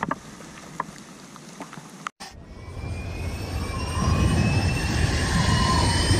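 Faint outdoor sound with a few sharp clicks, cut off about two seconds in. Then an intro sound effect: a rising whoosh with several upward-sliding tones that grows steadily louder.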